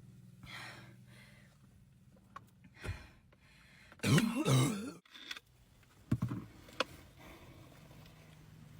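A young woman belching loudly once, about four seconds in, for just under a second, the pitch wobbling up and down, after gulping down Sprite. A few sharp clicks follow a second or two later.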